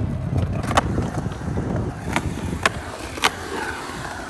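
Skateboard wheels rolling on a concrete skatepark bowl, a rumble that fades after the first couple of seconds, with four sharp clacks of boards striking the concrete.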